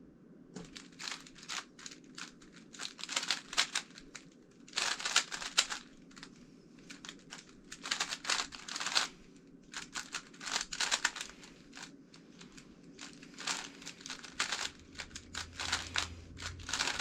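Magnetic GAN356 X speed cube being turned fast: bursts of rapid plastic clicking and clacking, broken by short pauses.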